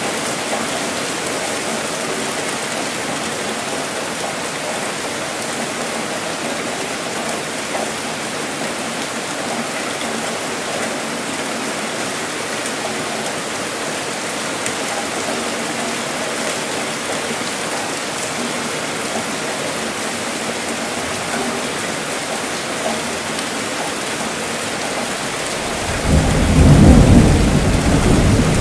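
Steady rain falling as an even hiss. Near the end, a deep rumble of thunder swells in and becomes the loudest sound.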